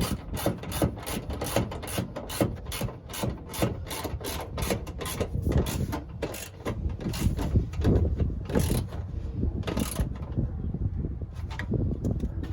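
Hand-tool work on a truck's washer-fluid reservoir: irregular metallic clicks and knocks, about three a second, over a low rumble, thinning out near the end.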